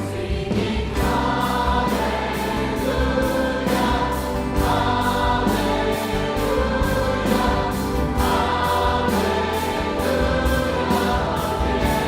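Choir singing with orchestra accompaniment, sustained chords over a steady bass and an even beat.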